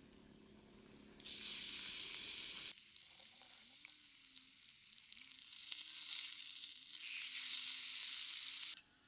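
A hissing, crackling noise that starts abruptly about a second in and breaks off sharply. It returns softer, grows louder, and cuts off suddenly near the end.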